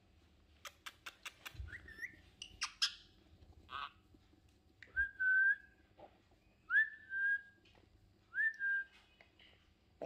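A run of sharp clicks, then three short whistled notes, each sliding up and then holding one steady pitch.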